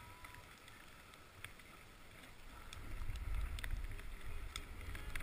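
Skis sliding over snow while wind buffets the microphone. The low wind rumble swells about halfway through, with a few faint clicks.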